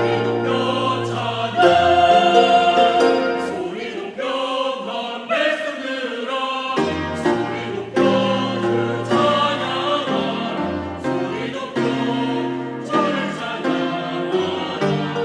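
A church choir singing a hymn of praise, with piano accompaniment.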